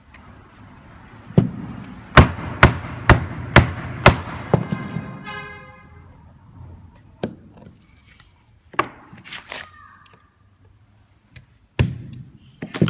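Hammer or mallet knocking stainless steel ring and bearing parts together: a run of sharp knocks about two a second, a short metallic ring, then a few scattered knocks.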